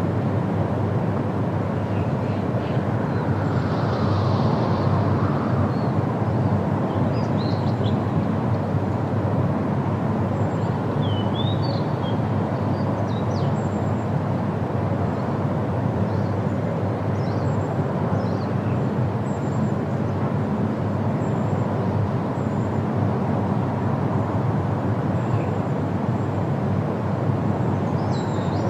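Steady roar of the Rhine Falls, a large waterfall, with a few faint short high chirps over it.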